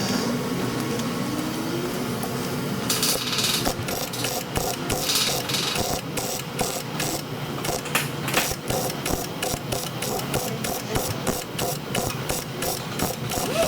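A rapid, even run of sharp mechanical clicks or taps, about three to four a second, starting a few seconds in.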